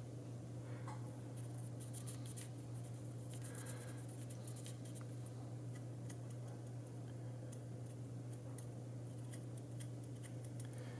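A steady low hum with scattered faint clicks and taps of small parts being handled, mostly in the first half.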